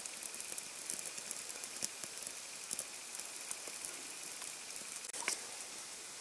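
Small campfire of dry debris crackling faintly over a steady hiss, with scattered small pops and one sharper snap about five seconds in.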